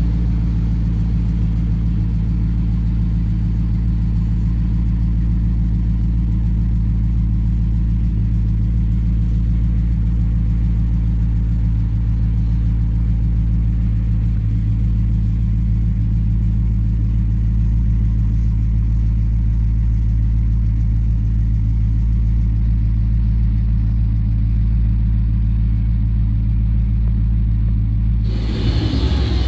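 Dodge Challenger Scat Pack's 392 HEMI 6.4-litre V8 idling steadily on its factory exhaust, a low, even rumble. About a second before the end the sound turns brighter and hissier.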